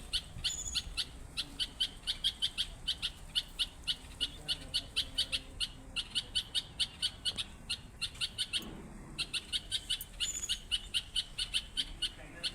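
A songbird calling in a rapid, even series of short high notes, about four or five a second, broken briefly a little before 9 s; a separate, higher call sounds twice, near the start and around 10 s.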